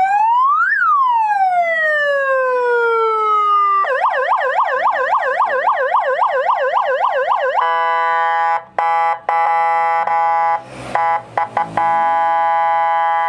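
Modified electronic police siren module sounding through its speaker as a police horn. It runs through its tones: a quick rise and a long falling wail, then a fast warble of about five cycles a second, then a steady blaring tone, briefly broken by a few short gaps and a knock.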